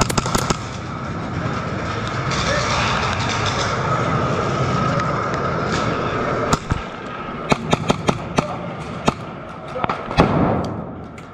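Airsoft gunfire in a close-quarters arena: a few sharp cracks at the start, then over the second half a scatter of about ten more single cracks and BB hits, over a steady background din.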